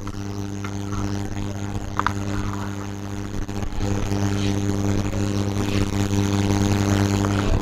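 Steady electrical mains hum with a buzzy edge, growing somewhat louder about four seconds in.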